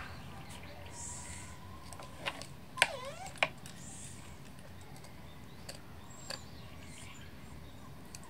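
A knife working meat off a skinned nutria's ribcage on a wooden board: quiet cutting with a few small sharp clicks. The loudest are two clicks about three seconds in, with a brief swooping squeak between them.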